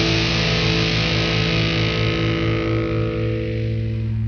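Rock music ending on a distorted electric guitar chord held and left ringing, its upper range fading away near the end.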